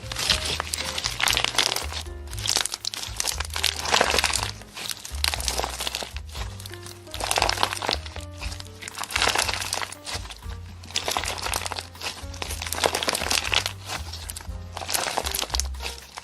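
Relaxed jazz background music over repeated crinkling, crunching sounds of slime being squeezed and pressed, coming in waves every second or two.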